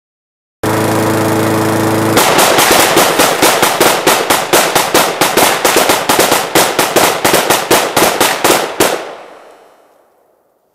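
A Honda lawn mower's small engine running steadily, then a long rapid string of 7.62x39 rifle shots, about four or five a second for nearly seven seconds, dying away after the last shot.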